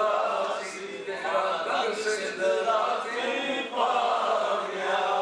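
Male voices chanting a melodic devotional recitation, sustained and pitched rather than spoken.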